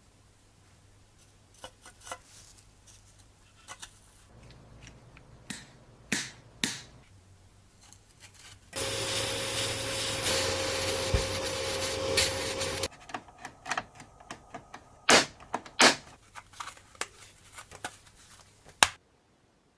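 Workshop handwork: scattered clicks and knocks of small tools and parts. About nine seconds in, a small powered tool runs for about four seconds with a steady whine and a loud hiss, then stops.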